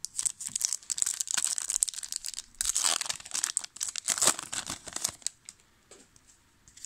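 Foil wrapper of a 2000 Topps Season Opener football card pack crinkling and tearing as it is ripped open by hand. The crackling stops about five seconds in, leaving only a few faint clicks.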